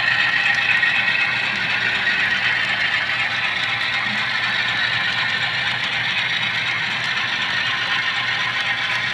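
Model railroad freight cars rolling steadily past on the track, their wheels giving an even rolling noise over a low steady hum.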